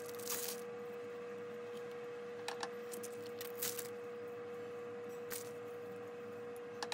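Fingers shredding imitation crab sticks and handling a plastic wrapper: a few soft, short rustles and ticks over a steady faint hum.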